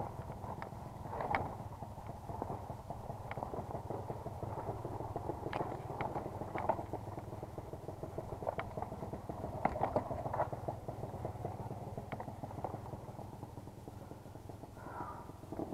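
Dirt bike engine running at low, steady revs, crawling over a rutted trail, with frequent clicks, knocks and rattles as the bike jolts over the ground.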